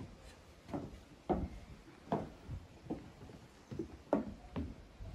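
Footsteps walking across a hardwood timber deck: a steady series of dull knocks, about one step a second or a little faster.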